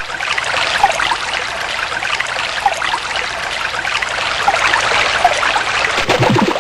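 Steady rushing of flowing water, like a stream, with short high chirps scattered through it.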